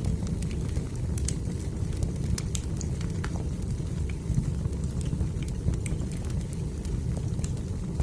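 Fire burning in a fireplace, crackling with frequent small, sharp pops scattered irregularly over a low, steady rumble.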